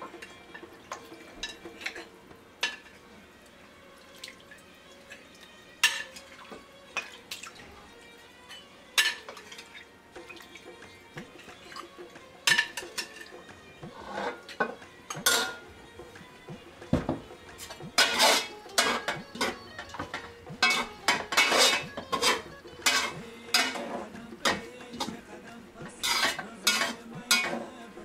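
Metal utensils clinking against a glass bowl and a large metal pot as cooked lamb pieces are spooned onto rice. The clicks are sparse at first and come thick and fast from about halfway, with scraping as the rice is worked with a metal skimmer.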